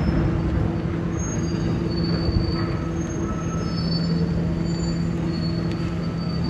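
Heavy demolition machinery running, a steady low engine drone with thin high-pitched metal squeals that come and go.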